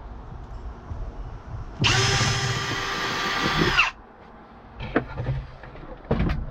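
A hammer drill switched to plain drilling runs for about two seconds, boring a hole into a wooden floor panel, and its pitch drops as it stops. A few handling knocks follow.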